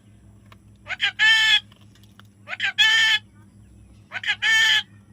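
A parrot calling, three times about a second and a half apart: each call is a couple of quick short notes running into one longer, harsh note.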